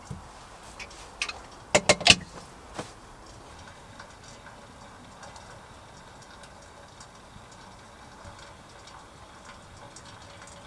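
A quick run of sharp clicks and knocks close together about two seconds in, then only faint scattered ticks over a low steady background.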